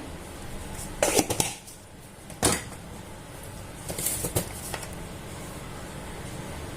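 Light knocks and clinks of kitchen utensils and spice containers being handled while spice powders are spooned into a bowl. There is a cluster of knocks about a second in, a sharper single knock about two and a half seconds in, and a few more about four seconds in.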